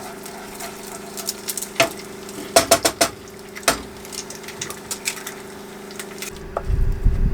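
Sliced plantains frying in a covered pan on a galley stove, with a soft sizzle and several sharp metallic clicks and clatters of pan and lid, the loudest cluster about two and a half to three seconds in. A steady low hum runs underneath, and a low rumble comes in near the end.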